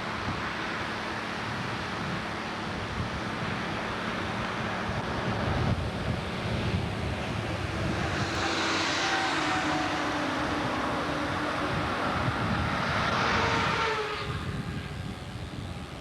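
Flooding Peshastin Creek rushing in a steady roar, with wind on the microphone. In the middle an engine hum rises over the water and fades away again.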